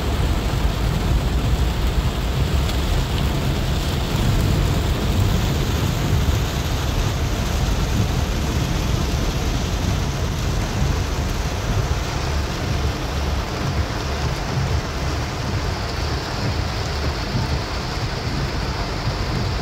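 Heavy rain drumming on a car's roof and windscreen, heard from inside the cabin as a loud, steady noise with a deep rumble.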